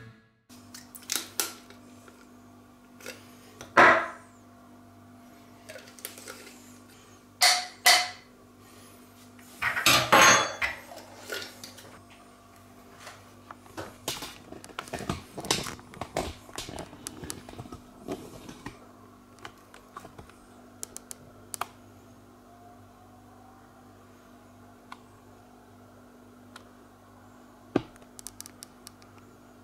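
Clatter and knocks of small hard objects handled on a tabletop, with the loudest knocks about 4, 8 and 10 seconds in and a run of lighter clicks after that. A low steady hum runs underneath.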